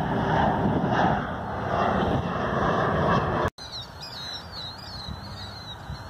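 Bombardier CRJ700 regional jet climbing out after takeoff, its two rear-mounted GE CF34 turbofans giving loud, steady jet noise with a faint whine in it. The noise cuts off abruptly about three and a half seconds in, leaving small birds chirping over light background noise.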